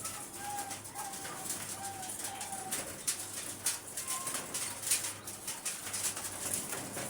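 Doves cooing: a row of short, even coo notes about twice a second over the first few seconds, then one higher note, over a scatter of small clicks and rustles and a low steady hum.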